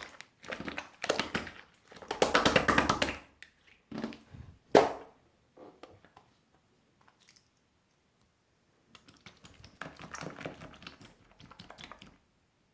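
Melted, runny opaque slime being worked by hand, giving clusters of rapid wet clicks and pops. The clicks pause for a few seconds in the middle, resume, then stop shortly before the end.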